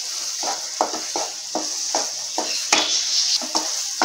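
A spatula stirring and scraping thick banana halwa in a nonstick frying pan in quick strokes, about two or three a second, over a steady sizzle of ghee cooking in the pan.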